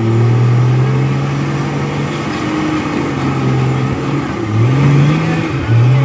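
Rock crawler's engine running under load while climbing a rock ledge, with two sharp revs of the throttle near the end, each rising in pitch.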